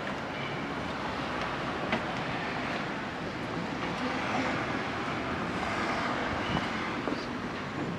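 Honda CB1100's air-cooled inline-four idling steadily through a Yoshimura titanium Cyclone exhaust.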